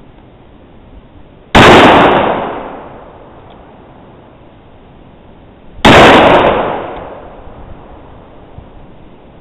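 Two loud gunshots, about four seconds apart, each trailing off over about a second.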